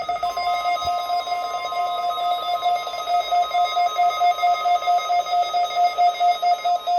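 NOAA Weather Radio warning alarm test: the steady weather-radio alarm tone sounds under a louder, repeating electronic beep of about three beeps a second, the beeping growing stronger toward the end. The alarm tone signals that the weekly test of the warning alarm is under way.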